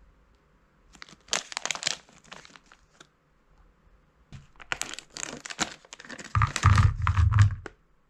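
Plastic snack bag of gummy candies crinkling as it is handled, about a second in and again from about four and a half seconds, as it is torn open. Near the end the loudest part: low thumps among the rustle as the gummies are shaken out of the bag onto a plate.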